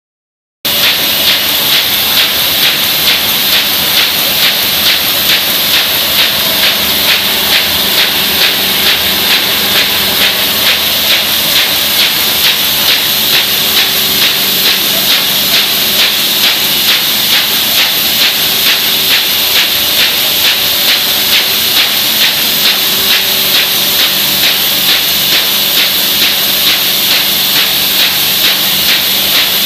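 MBO paper-folding machine running: a steady hiss over a fast, even mechanical clatter.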